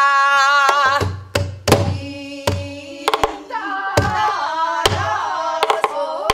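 A woman singing pansori, a long held note with heavy vibrato at the start and then a wavering, ornamented sung line, while she strikes a buk barrel drum with a stick and hand. About nine sharp drum strokes are spaced unevenly through the phrase.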